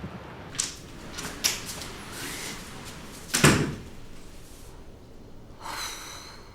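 A door being handled: a few light clicks of the latch, then one louder shut about three and a half seconds in, and a short rustle near the end.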